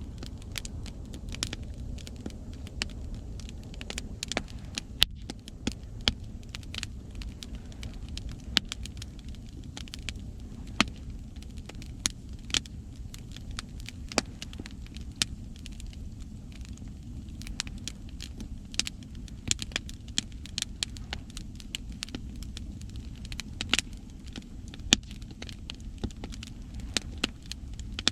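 Wood campfire crackling, with frequent irregular sharp pops and snaps, over a steady low rumble of ocean waves.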